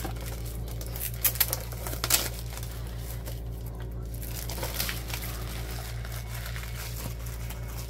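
Plastic shrink-wrap crinkling as it is pulled off a tin watercolor paint set, with a few sharper clicks about one and two seconds in.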